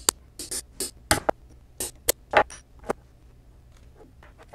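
Small metal parts of a Monroe mechanical calculator clicking and clinking as they are handled: the digit-wheel shaft and its loose steel wheels knocking together and being set down on the bench. About ten sharp clicks come in the first three seconds, then fewer and quieter ones.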